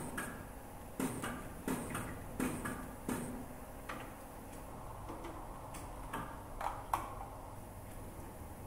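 Sharp metallic clicks and clunks from assembly-line handling tooling and fixtures, about ten in two clusters, over a steady low hum of the factory hall.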